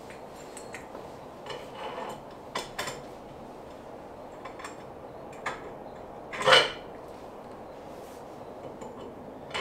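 Scattered light metal clinks and knocks of hardware and tools being handled while the T-top stabilizer is fitted to the boat console. One louder clatter comes about six and a half seconds in.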